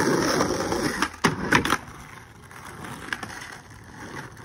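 Skateboard wheels rolling on asphalt, with a few sharp clacks of the board between about one and two seconds in; the rolling then goes on more quietly.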